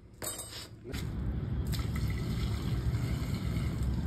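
Water poured from a mug into a concrete tank, splashing and trickling steadily from about a second in, over a low rumble.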